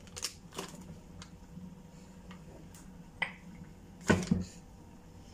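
Newspaper rustling and crinkling as it is pressed down by hand over a cooking pot to seal it for dum, with scattered light clicks and a louder double knock about four seconds in.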